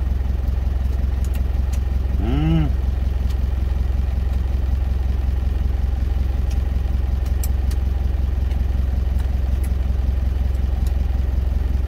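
Truck engine idling steadily, heard inside the cab, with a constant low hum. It is left running to cool down because it is hot from high-speed driving.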